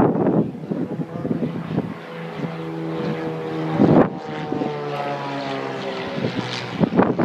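Propeller-driven aircraft engine droning steadily overhead during an air show display, with wind buffeting the microphone at the start and again about four seconds in.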